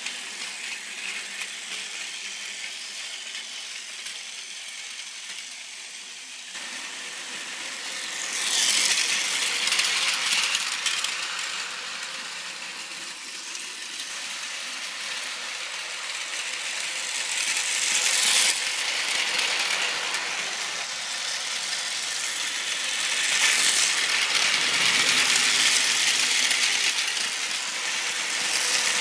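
Plarail toy train, a model of the Tobu 100 series Spacia, running on plastic track: its battery motor and gearbox whirr and the wheels rattle over the track joints. The sound grows louder several times as the train passes close.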